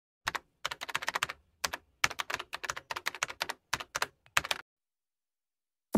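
Computer keyboard typing sound effect: irregular runs of quick key clicks that stop about a second and a half before the end.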